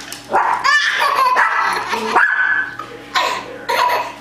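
Small white dog barking in several short, high-pitched yips.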